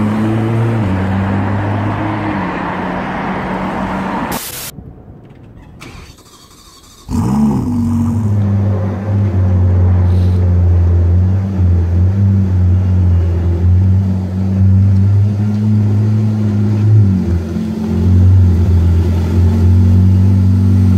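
Sports car engines: a car's engine note fading away down the street over the first few seconds, then cut off. After a short lull, a parked supercar's engine idles with a steady deep note, wavering briefly about three-quarters of the way in.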